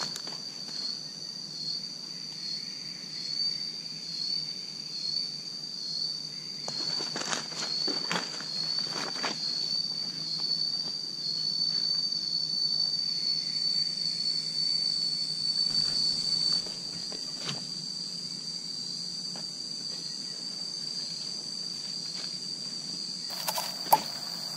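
Insects droning with one steady high-pitched tone that wavers slightly, with a few footsteps crunching dry leaf litter about a third of the way in.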